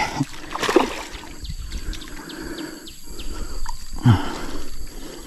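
A bird calling in a quick run of short, falling chirps over a steady high hum, with a brief low grunt about four seconds in.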